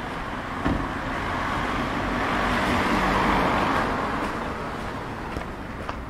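A road vehicle passing along the street: its noise swells to a peak about three seconds in and fades away, with a short knock near the start.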